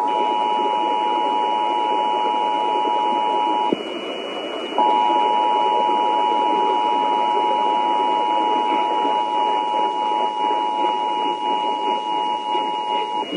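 The Emergency Alert System two-tone attention signal: two steady tones sounding together, just below 1 kHz, over a noisy, hissy broadcast. The tone breaks off for about a second about four seconds in, then resumes and holds until near the end. It signals that an emergency alert message follows.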